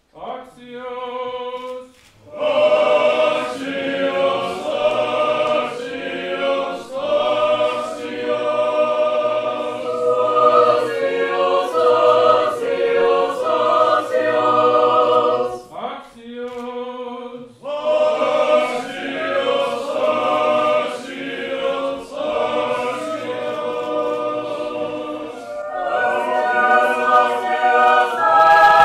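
Russian Orthodox mixed choir singing liturgical chant a cappella. A single voice sings alone for the first two seconds and again about sixteen seconds in, and each time the full choir then comes in.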